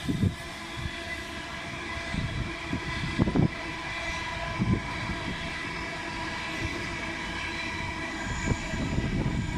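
National Express electric multiple-unit train running past with a steady high whine over the rumble of its wheels on the rails. Wind buffets the microphone in irregular gusts.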